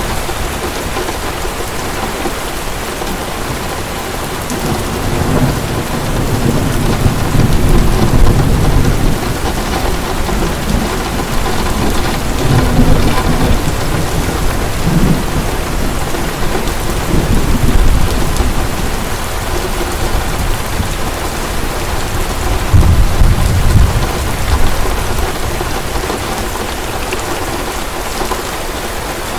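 Heavy rain pouring steadily, with thunder rumbling low several times, swelling and fading in long rolls.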